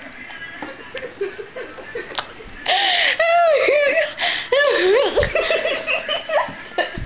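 Girls laughing hard: quieter at first, then loud, high-pitched peals of laughter from about three seconds in, easing off near the end.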